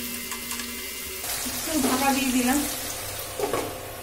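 Chopped onion and tomato sizzling in hot mustard oil in a kadai, with light clicks of a wooden spatula stirring. A glass lid is put on the pan in the second half, and the sizzle is quieter under it.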